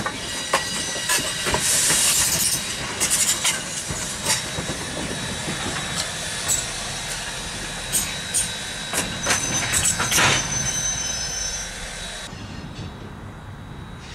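Steam locomotive backing a short passenger train at slow speed, with steel wheels clicking over rail joints and steam hissing, and a brief high wheel squeal about ten seconds in. The sound fades after about twelve seconds as the train moves away.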